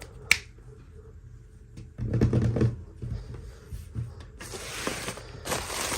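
Toy doll packaging being handled and opened by hand: a sharp click just after the start, a burst of handling noise about two seconds in, then steady rustling and crinkling from about four and a half seconds on.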